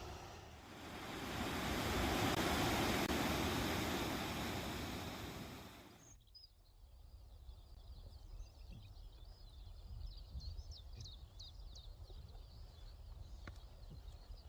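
A broad rushing noise swells and fades over about six seconds, then cuts off abruptly to quiet outdoor air with small birds chirping.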